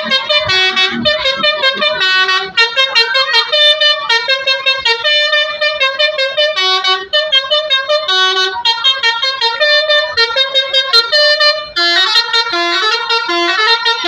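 Basuri telolet horn, a multi-tone musical horn of the kind fitted to Indonesian buses, playing a quick tune in short notes with several pitches sounding together. The tune pauses briefly about 7 and 12 seconds in.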